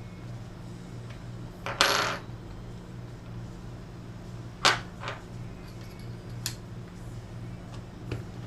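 Small metal screws and a screwdriver clinking and clicking against a monitor's housing, with a short rattling clink about two seconds in and a few single sharp clicks after it, as face-plate screws are put back in. A steady low hum runs underneath.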